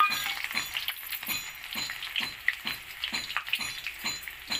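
Hot cooking oil sizzling in a steel kadhai, with irregular sharp crackles and pops, and a short metallic clink at the very start.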